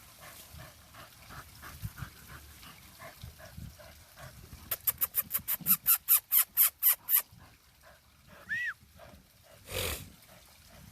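Dog sniffing hard into a burrow it has caught a scent at, a fast run of about fourteen snuffs in two and a half seconds, the loudest sound here. Later a short high whine and one sharp snort-like burst.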